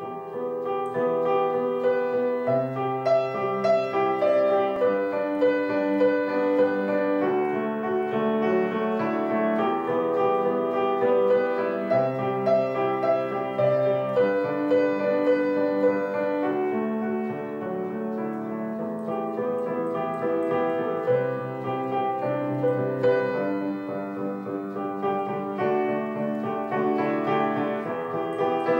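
Background piano music with held chords.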